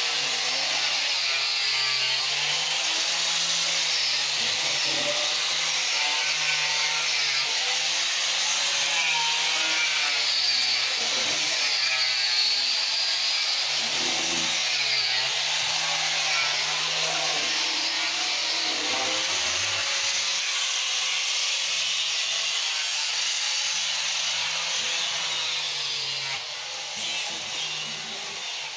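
Steady rasping noise of wood being worked on speaker box cabinets, with a faint pitched sound stepping up and down underneath. The rasping eases off near the end.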